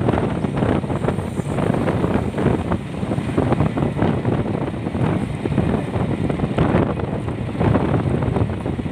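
Wind buffeting the microphone on a moving becak, a loud rough rumble, with the vehicle's road and traffic noise underneath.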